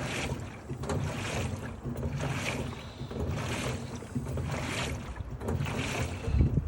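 LG TurboDrum direct-drive top loader agitating: the whole drum turns back and forth, and water and clothes slosh with each stroke, roughly once a second, over a low motor hum. A heavier low surge comes just before the end.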